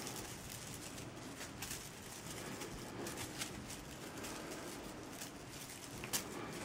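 Kittens scuffling and pawing at a feather toy on a rug: soft rustling and light pattering taps, with one sharp click about six seconds in.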